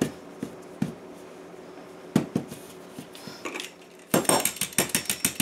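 Scattered light taps and knocks of hands and a metal utensil on a counter, with a quick run of sharp clicks from about four seconds in as a utensil works along the edge of a dough pocket to crimp it shut.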